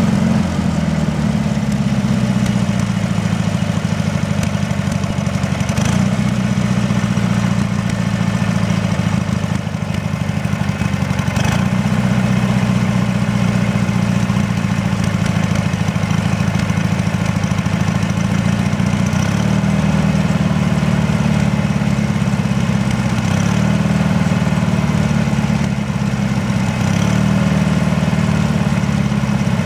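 Briggs & Stratton 18 hp engine on a garden tractor idling roughly, with the engine note wavering and dipping briefly a couple of times.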